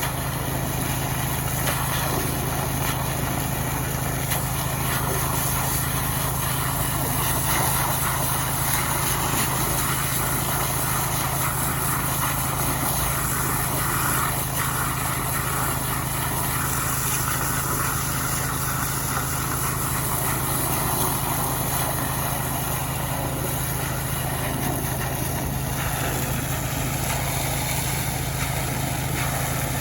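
Small Robin petrol engine running steadily at a constant speed, with an even hum and no change in pitch.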